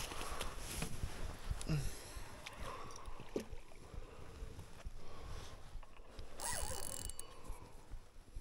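Rod and reel handling noise from an angler playing a hooked carp from the bank: irregular clicks and rustles, with a brief rush of noise about six and a half seconds in.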